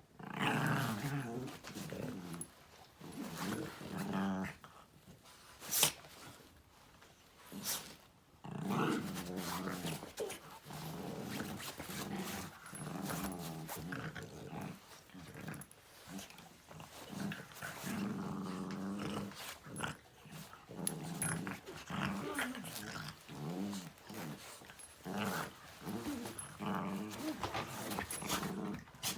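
French bulldog growling and grumbling in long, wavering, nearly continuous bouts, with two sharp clicks in the first eight seconds.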